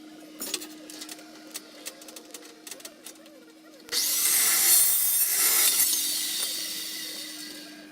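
A few light metal clinks and taps, then about halfway through a carbide-tipped cold cut saw starts abruptly and cuts through steel square tubing. The loud cutting noise gradually dies away near the end as the blade winds down.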